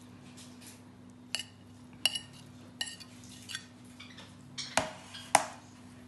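Metal spoon clinking and tapping against a dinner plate while spreading coconut filling over pastry: a string of short, irregular clicks, the loudest two near the end.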